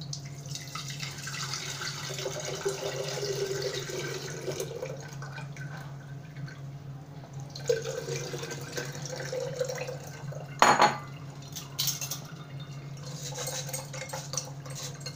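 Salted sattu drink poured through a metal mesh strainer into a glass jug: liquid splashing and trickling in spells, with a short pause partway. A sharp clink comes about two-thirds in, the loudest sound, followed by a few lighter taps.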